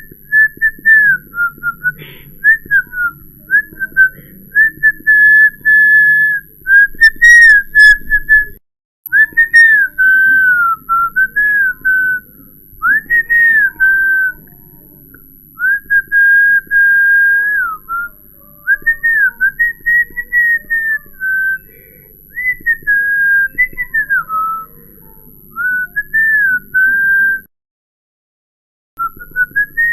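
A person whistling a wandering line of held notes joined by slides up and down, with two brief breaks, one about a third of the way in and one near the end.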